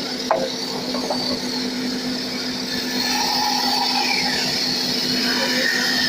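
Band saw running with a steady motor hum. A sharp click comes about a third of a second in, and the sound grows a little louder about three seconds in.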